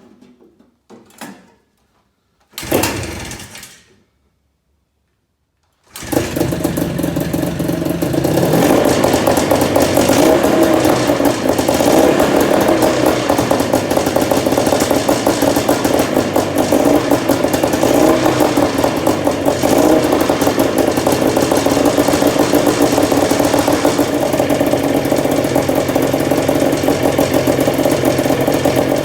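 Rebuilt Kawasaki T1C 340 two-stroke twin snowmobile engine starting abruptly about six seconds in and then running steadily. It is the freshly overhauled engine's first real run, after a faulty CDI unit was replaced. A few faint clicks and a short rasping noise come before it.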